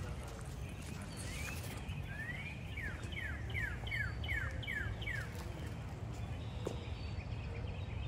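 A songbird singing one phrase of repeated clear whistled notes, each sliding down in pitch, a little over two a second, over a steady low background rumble.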